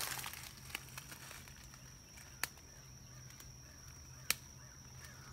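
Quiet outdoor ambience: a faint steady high-pitched drone and a low hum, broken by a few sharp isolated clicks, the clearest about two and a half and four and a quarter seconds in.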